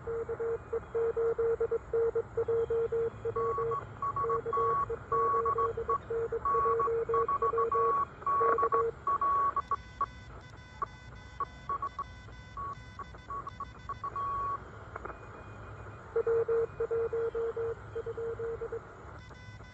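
Morse code from an Elecraft KH1 handheld CW transceiver: a lower-pitched tone keyed in dots and dashes for about the first nine seconds and again near the end, and a second, higher-pitched Morse signal from about three to fifteen seconds in, over steady hiss.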